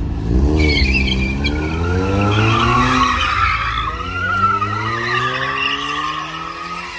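Car drifting: its engine revs up and down while the tyres squeal, the squeal holding steady from about two seconds in. The sound fades slightly near the end.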